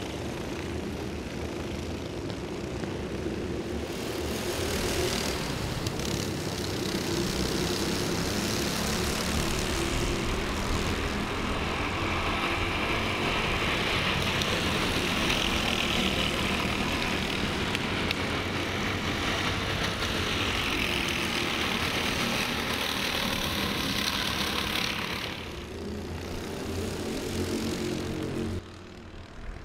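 Several Honda Cadet karts' small single-cylinder four-stroke engines buzzing at racing revs as a pack goes past. The sound swells about five seconds in, stays loud through the middle, fades after about 25 seconds and cuts off abruptly near the end.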